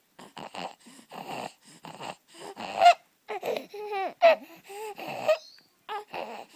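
A six-week-old baby breathing noisily in a quick run of short breaths, two to three a second, with a few brief pitched baby sounds near the middle. The noisy breathing is the stridor of laryngomalacia, a congenitally floppy larynx.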